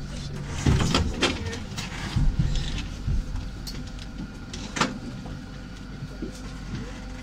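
Citadis 302 tram standing at a platform: a steady low hum from the tram, with a few sharp knocks and clicks, the loudest about a second in and near five seconds.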